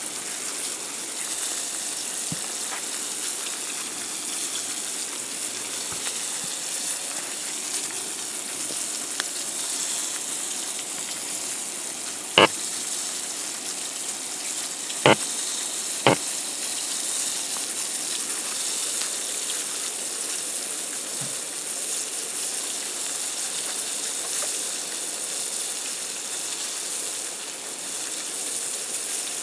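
Floured fish fillets frying in oil in a cast iron skillet on a backpacking stove: a steady sizzling hiss. Three sharp clicks come about midway, two of them close together.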